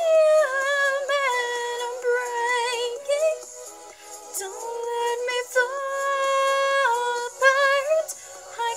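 A woman's voice singing a slow melody in long held notes with vibrato, pitched high and with no bass beneath it.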